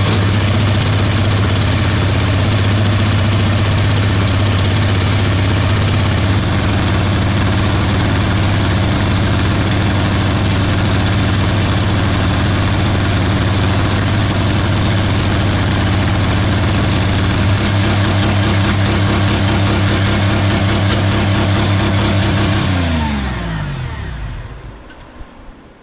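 Car engine with its exhaust cut off, running flat out at wide-open throttle on vegetable oil in place of engine oil, a loud, steady racket. About 23 seconds in it winds down, falling in pitch, and stops: the vegetable-oil-lubricated engine giving out in a quiet shutdown rather than blowing apart.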